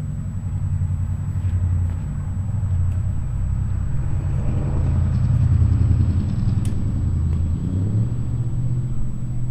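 A motor vehicle's engine running on a nearby road, a steady low hum that grows louder towards the middle and eases off after about eight seconds. A single sharp click about six and a half seconds in.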